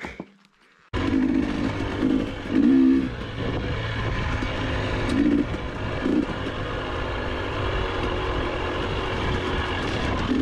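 GasGas EC300 two-stroke dirt bike engine running while the bike is ridden, heard from the rider's own camera. The engine sound cuts in abruptly about a second in, with a few brief louder swells in the first few seconds.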